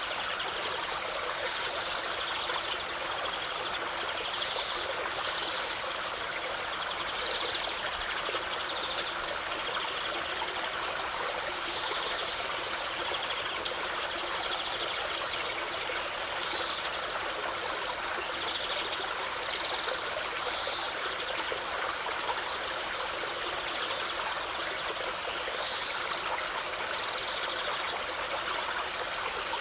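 River water flowing steadily, a continuous rushing with small irregular splashes and gurgles on top.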